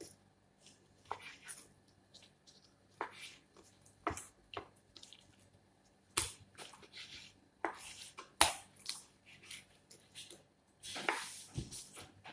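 Knife cutting raw chicken breast on a wooden cutting board: irregular knocks and clicks of the blade against the board, with soft handling sounds of the meat. Two sharper knocks come about six and eight and a half seconds in.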